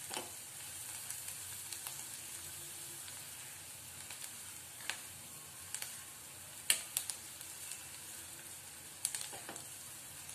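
Chopped onion with green chillies and curry leaves sizzling steadily in hot oil in a nonstick kadhai over a medium flame, stirred with a silicone spatula. A few sharp clicks of the spatula knocking against the pan come in the second half.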